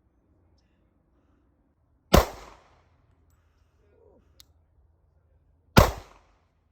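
Two shots from a Glock 27 subcompact pistol in .40 caliber, about three and a half seconds apart, each with a short echoing tail.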